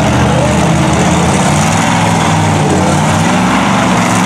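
Supercharged LQ4 V8 of a lifted Jeep mud truck on tractor tires, running loud and steady under load as it drives through a mud pit, its revs swelling slightly now and then.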